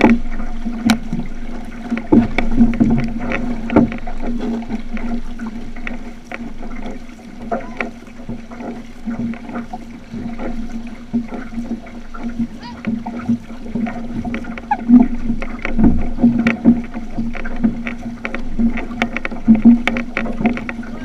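Outrigger canoe being paddled: irregular paddle splashes and water rushing along the hull, over a steady low hum.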